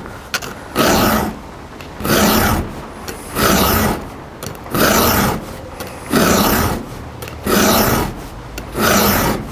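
Round chainsaw file rasping across a saw-chain cutter tooth in steady push strokes, about seven strokes roughly a second and a quarter apart, each lasting about half a second.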